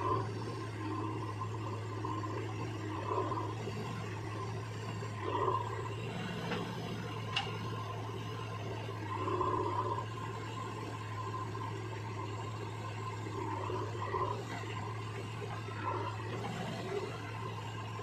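Diesel engine of a JCB 3DX backhoe loader running as the machine manoeuvres: a steady low hum with swells every few seconds, and a single sharp click about seven seconds in.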